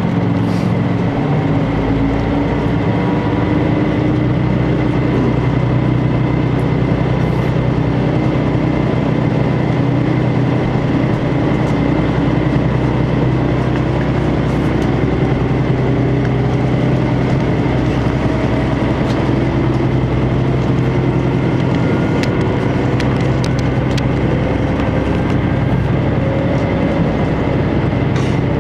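HOT7000-series diesel railcar heard from inside the passenger cabin: a steady low engine drone, with faint whining tones that slowly rise in pitch from about halfway through as the train pulls away and gathers speed.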